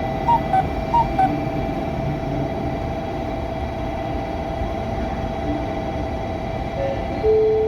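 Two-note electronic chime on a railway platform, high then low, sounding twice, over a steady two-tone hum; a lower held tone comes in near the end.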